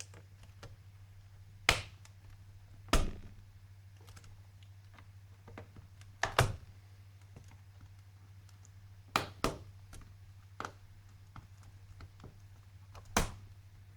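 Sharp plastic clicks and taps, about seven spread unevenly with fainter ticks between, as the keyboard of an Asus F3S laptop is pried up and its small retaining latches are pressed and released.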